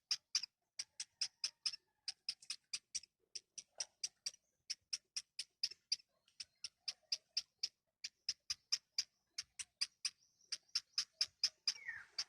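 Nestling baby birds cheeping: a steady run of short, high, thin peeps at about five a second, broken by brief pauses.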